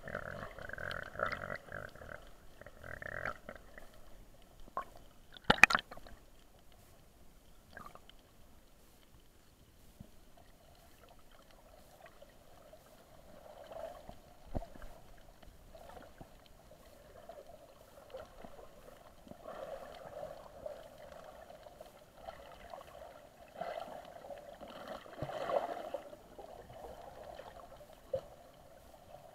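Muffled underwater sound picked up by a submerged camera: water movement and gurgling that swells and fades, with one sharp knock about five and a half seconds in.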